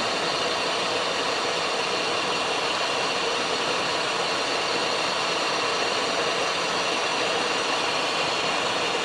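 Steady in-flight cabin noise of a Cessna Citation XLS business jet on approach: an even rush of airflow mixed with the hum of its twin turbofan engines, with faint steady high tones over it.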